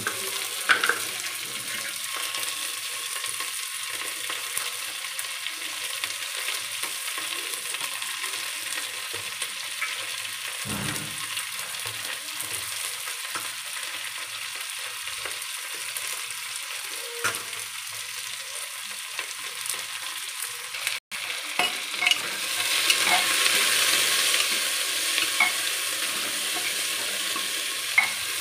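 Sliced onions sizzling as they fry in hot oil in a pressure cooker, with a few light clicks now and then. The sizzle grows louder in the last several seconds.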